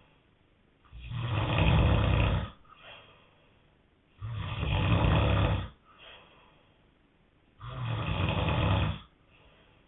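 A man snoring in his sleep: three long, loud snores about three and a half seconds apart, each followed by a short, faint breath.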